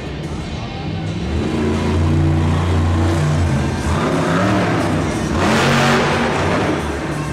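Several monster truck V8 engines running hard and revving, with a louder surge of engine noise about five and a half seconds in.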